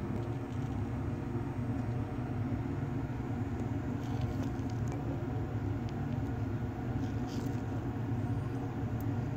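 Steady low mechanical hum, like a fan or motor running, with a few faint small clicks about four and seven seconds in.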